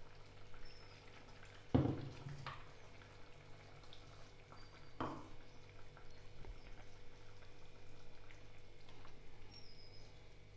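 Peanut gravy simmering in a pan with freshly added ground masala paste, bubbling faintly with a few sharper pops, the loudest about two seconds in.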